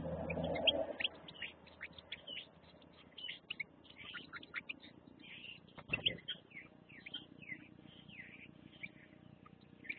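European goldfinches twittering: quick, short chirping calls repeated all the way through. A short muffled rush comes in the first second, and a single sharp knock about six seconds in.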